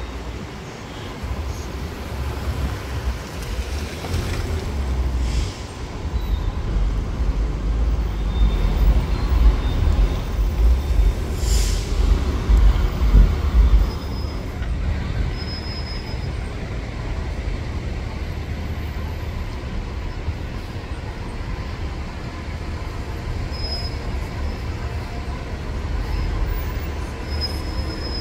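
City transit bus engine running and pulling away, its low rumble growing loud and then easing off about halfway through, with a short hiss of air near the middle; steady street traffic rumble follows.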